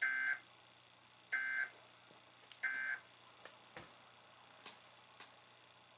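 Emergency Alert System end-of-message signal: three short bursts of SAME data tones, about 1.3 seconds apart, marking the close of the alert. A few faint clicks follow.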